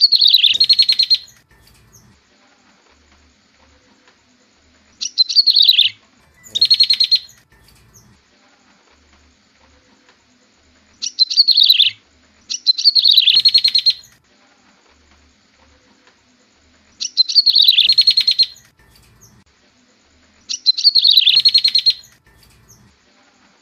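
Prenjak tebu (a prinia) calling, a looped lure recording: each call is a high swooping note that runs straight into a fast buzzy trill. The calls come singly or in pairs about every six seconds, with six groups in all.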